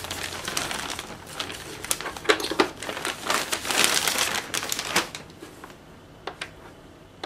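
Clear plastic wrapping bag crinkling and rustling as it is pulled off an electronic instrument. It dies down about five seconds in, leaving a few light clicks and knocks.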